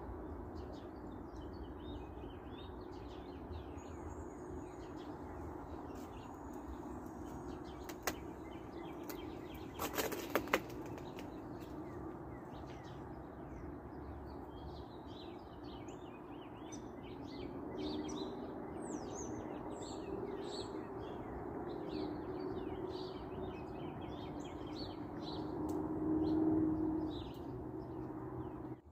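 Many small songbirds chirping and twittering, busier in the second half, over a steady low background hum. A few sharp clicks around ten seconds in.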